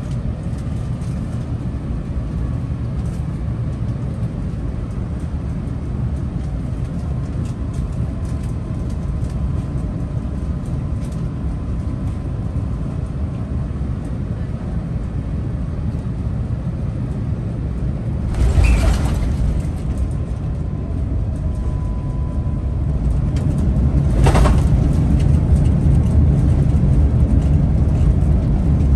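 Airbus A350 landing, heard from inside the passenger cabin: a steady low rumble of airflow and engines on short final. About two-thirds of the way through comes a sudden jolt as the wheels touch down. A second jolt follows a few seconds later, and the rumble then grows louder for the rest of the rollout.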